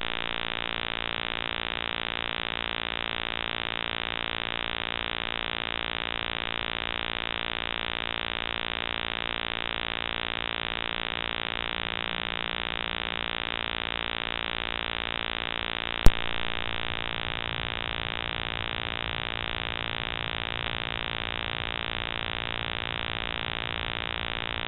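Steady electronic buzz and hiss from a Moultrie trail camera's own recording, many fixed tones held without change. A single sharp click about 16 seconds in, where one trail-camera clip ends and the next begins.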